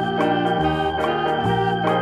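Background music with held chords over a bass line that changes note about once a second.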